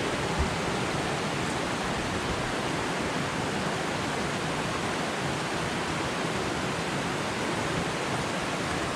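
Steady rushing of a waterfall and creek cascading into a rock pool, an even wash of water noise, with one soft low bump about half a second in.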